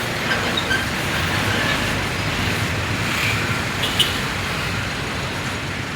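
Steady road traffic noise, with a single sharp click about four seconds in.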